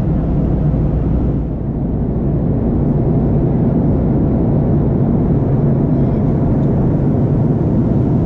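Steady cabin noise of an Airbus A330-200 airliner in cruise: a low rumble of engines and airflow with a steady hum. The hiss thins briefly about a second and a half in.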